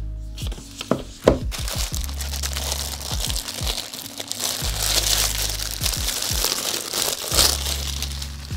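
Packaging crinkling and crackling as it is handled, with a few sharp clicks about a second in, over background music with held low bass notes.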